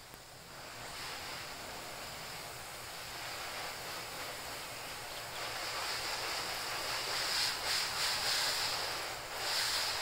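Water spraying from a garden hose nozzle, a steady spray that grows louder in the second half with a few brief dips near the end.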